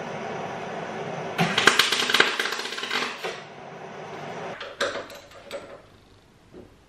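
Metal tools rattling and clinking against a car's front suspension strut in the wheel arch: a burst of rapid metallic rattling about a second and a half in, then a few single clicks. A steady hum underneath stops a little over three seconds in.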